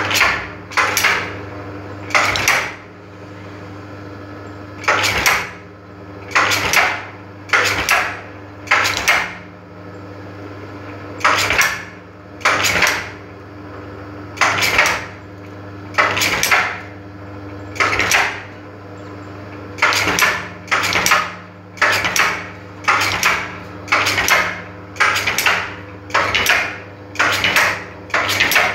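Brush tufting machine at work: a steady motor hum with about twenty short bursts of metallic clatter, one every second or so, as the tufting head drives bristle tufts into a wooden brush block.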